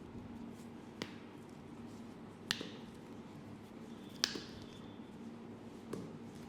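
Four sharp clicks, evenly spaced about one and a half to two seconds apart, the middle two the loudest, over a low steady hum.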